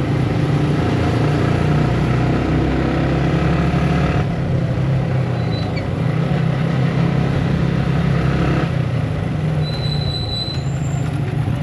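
Motorcycle engine running at steady speed while riding, with wind noise on the camera's built-in microphone.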